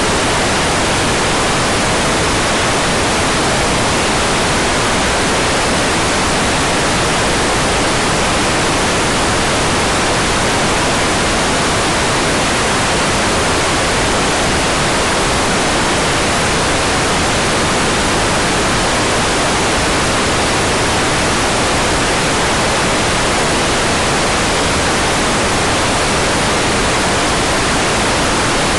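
Hair dryer noise: a steady, even rushing hiss with no change in pitch or level.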